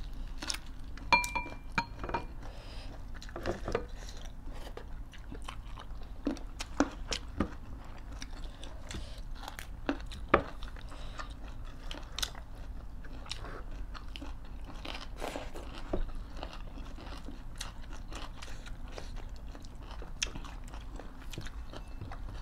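Close eating sounds of two people: chewing and biting into rice and vegetables, with scattered small crunches and clicks. A spoon clinks on a dish about a second in.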